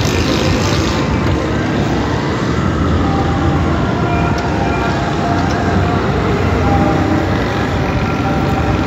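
Steady city traffic noise, a continuous rumble with no sharp events.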